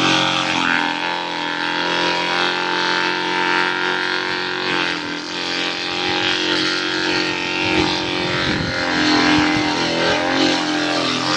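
Small wooden forage chopper driven by an electric motor, running steadily while shredding leaves, with a low rumble about eight seconds in as material goes through the blades.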